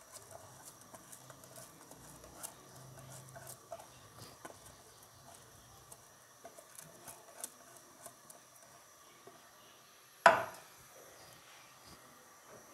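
Dry rice being poured and tapped out of a container into a pot of boiling stock: a scatter of light ticks and patters, then one sharp knock about ten seconds in.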